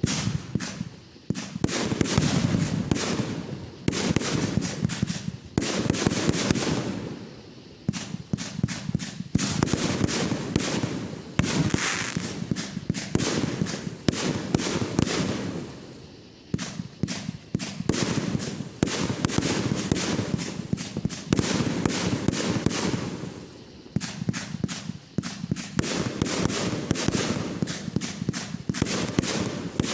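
Fireworks going off in quick succession: sharp bangs and runs of rapid crackling pops that come in waves, easing briefly a few times before the next volley.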